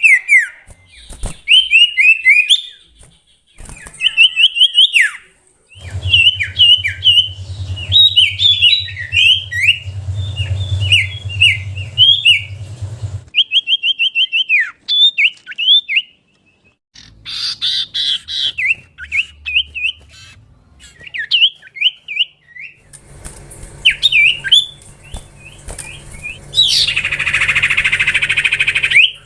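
Common iora (cipoh) singing: phrases of quick, sharp whistled chirps and rising slurs, separated by short pauses. Near the end a loud rushing hiss lasts a couple of seconds.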